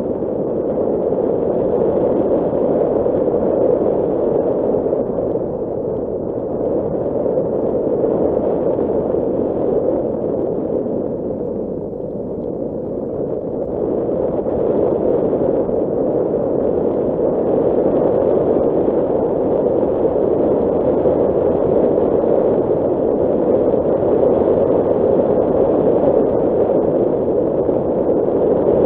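Nissan Qashqai driving on a gravel dirt track: a steady rumble of tyre and road noise, easing off briefly about twelve seconds in.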